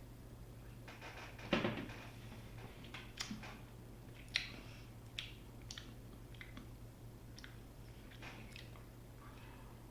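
A mouthful of Tucher Helles Lager being sipped about one and a half seconds in, the loudest sound here. It is followed by a string of short lip smacks and mouth clicks while the beer is tasted.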